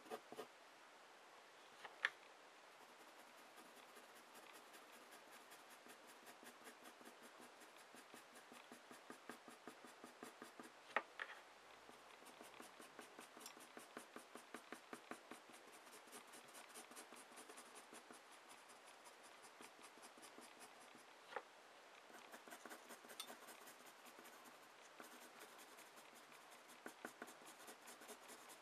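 A normal wooden graphite pencil scratching on paper in quick back-and-forth strokes, shading in drawn numbers; quiet. A few sharp ticks stand out, about 2, 11 and 21 seconds in.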